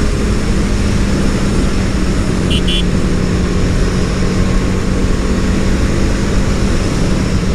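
Motorcycle cruising steadily, its engine a constant low drone under heavy wind noise on the rider's microphone. Two short high-pitched beeps sound about two and a half seconds in.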